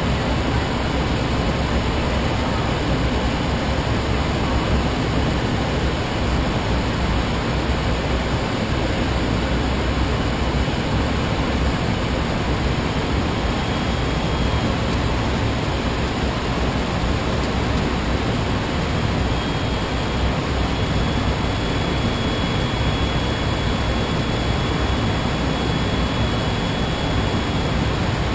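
Steady rushing noise of airflow and jet engines inside a private jet's cockpit, descending on final approach. A faint high steady whine joins about two-thirds of the way through.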